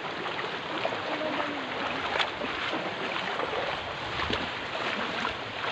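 Steady rush of flowing river water, with a single sharp click about two seconds in.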